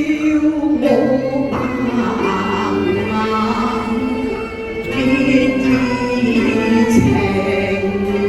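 Cantonese opera music: a sung phrase of long, sliding held notes over traditional Chinese instrumental accompaniment.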